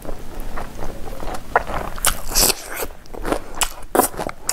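A person chewing and crunching food in her mouth, with a run of sharp, crisp crunches about two seconds in and another near the end.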